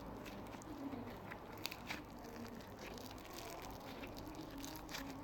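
Slime being squeezed and stretched by hand, giving a few faint soft pops and clicks.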